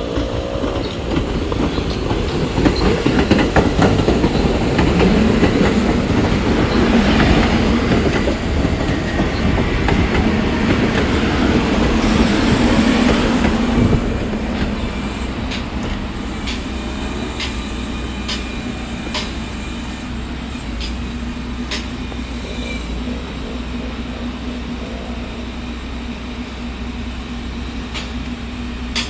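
A 1973 St. Louis Car R44 subway-type train approaches and passes close by, rumbling with its wheels clacking over the rail joints, loudest through the first half, with a short hiss about halfway through. It then runs quieter as it slows into the station, its wheels squealing in the curve.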